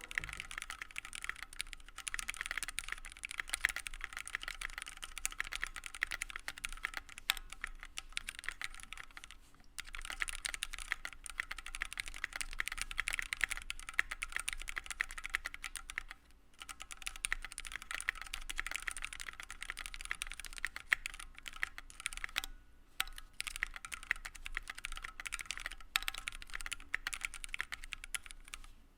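Typing on a stock Keychron Q1 mechanical keyboard with an aluminium plate and Gateron Phantom Red linear switches: a fast, continuous run of key clacks that stops briefly three times. The reviewer hears a lot of ping and hollowness in the case.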